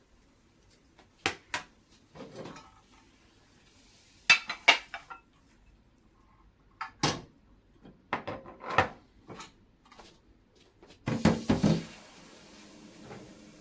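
Kitchenware being handled: scattered clinks and knocks of dishes and utensils in small bursts, with a busier cluster of clatter near the end.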